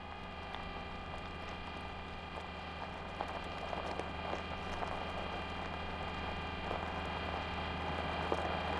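Sound effects of the Curiosity Mars rover driving: a steady mechanical hum and whine of its drive motors, with scattered clicks and crunches of its wheels rolling over gravel, slowly growing louder.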